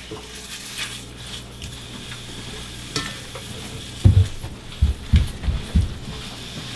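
Sausage sizzling as it browns in a cast iron skillet over medium heat, stirred and broken up with a utensil. A run of dull knocks about four seconds in.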